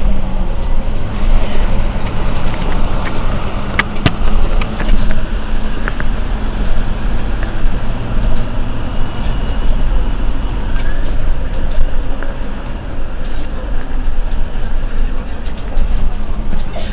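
Mercedes-Benz Citaro C2 Euro 6 city bus's diesel engine idling steadily while the bus stands at a stop, a constant low hum, with a couple of sharp clicks about four seconds in.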